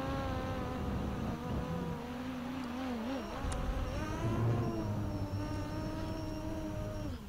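Quadcopter's brushless motors and propellers whining in flight, the pitch wandering up and down as the throttle changes, then dropping slightly and cutting off suddenly near the end.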